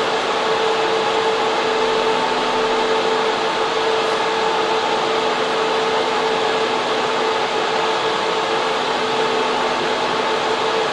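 Data center server room: the cooling fans and air handling of the servers running steadily, a loud even rush of air with a steady hum on top of it.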